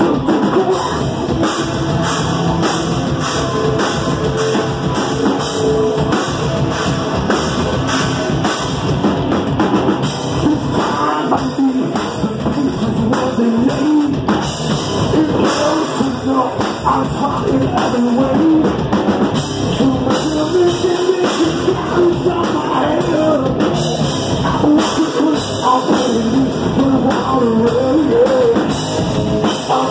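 Live heavy rock band playing loud: a drum kit and electric guitar with a singer's vocals over them.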